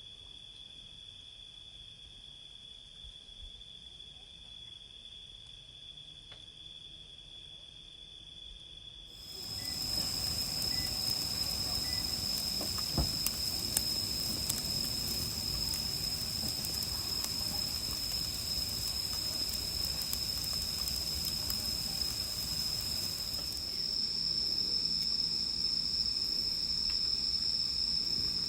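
Insects chirring in one steady high-pitched drone. About nine seconds in, the sound shifts abruptly to a louder, higher-pitched insect chorus over background noise, with a few faint clicks.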